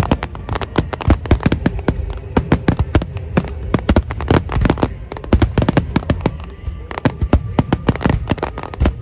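Starmine fireworks barrage: shells bursting in rapid succession, several sharp cracks and booms a second without a break.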